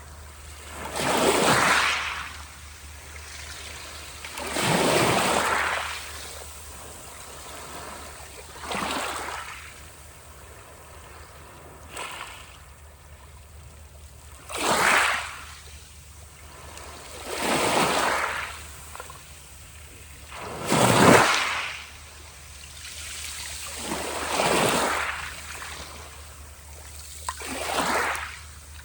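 Sea waves breaking one after another, about every three to four seconds. Each is a rush of surf that swells and then fades, with the loudest about two-thirds of the way through.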